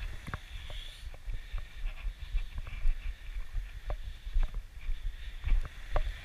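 Footsteps on a sand and pebble beach, irregular crunching steps about two a second, with wind rumbling on the microphone and the steady hiss of surf behind.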